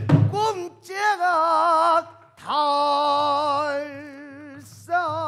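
Male pansori singer singing long held notes with wide, slow vibrato. A single stroke on the buk barrel drum sounds at the very start.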